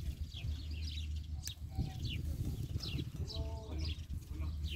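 Small birds chirping over and over in short, quick falling notes, with a couple of lower, drawn-out farm-animal calls about two and three and a half seconds in, over a steady low hum.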